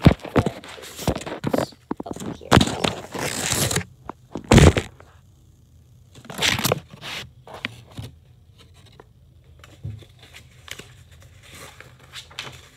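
Paper rustling and crinkling close to the microphone as pleated craft paper is handled and folded into a fan, with scraping as it rubs against the covered device. It comes in irregular bursts, loudest in the first five seconds, then settles to quieter rubbing.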